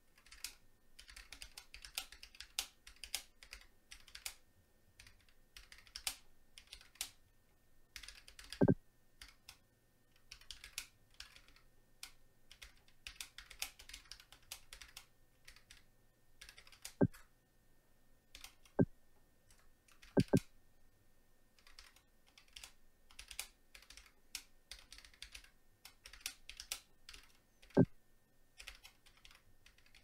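Fast, continuous typing on a Keychron K1 version 3 low-profile mechanical keyboard with Gateron low-profile red switches: a dense, irregular patter of light key clacks. A few keys land louder and deeper, about five times.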